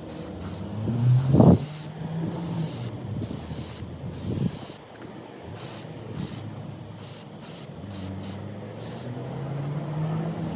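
Aerosol spray can of clear lacquer hissing in many short on-off bursts as a coat is dusted onto a car body panel. A low hum runs underneath, and a single knock about one and a half seconds in is the loudest sound.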